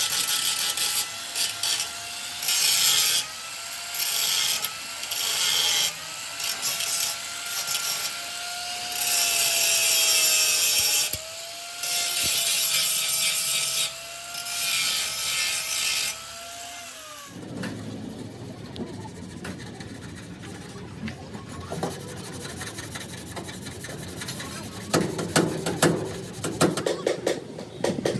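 A handheld electric power tool abrading a surface: a steady motor whine that dips slightly in pitch under load, with repeated bursts of harsh rasping each time it bears on the work. About seventeen seconds in the tool stops abruptly, leaving quieter clicks and knocks of hand work that grow louder near the end.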